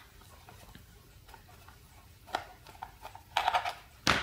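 Screwdriver working a screw out of the back of a small plastic analog multimeter case, with a few short clicks and knocks of the case being handled. The loudest knock comes near the end.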